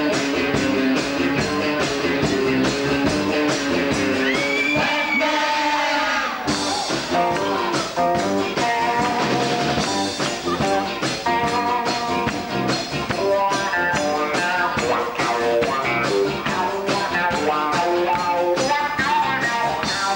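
Live rock band playing a rock-and-roll number: electric guitar, drums with a steady beat, and singing.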